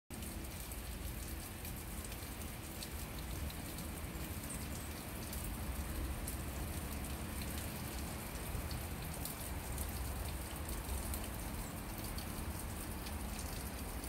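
A thin stream of water trickling out of a drainage pipe in a stone wall and splashing onto a rock in a shallow pool: a steady splashing with many small drip ticks.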